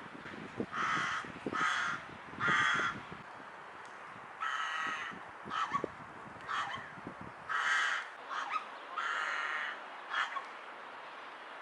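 A rook giving a run of harsh caws, some drawn out and some short and clipped. Its strange call is broken by short hiccup-like notes.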